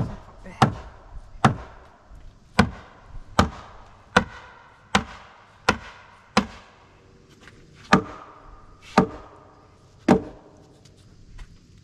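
A mallet striking timber to drive a joint together: about a dozen sharp wooden knocks, roughly one a second, spacing out a little toward the end, each with a brief ring.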